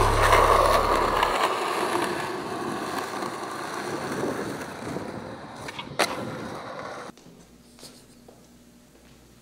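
Skateboard wheels rolling on rough asphalt, the rolling fading away, with a single sharp clack about six seconds in. The sound drops to quiet room tone about seven seconds in.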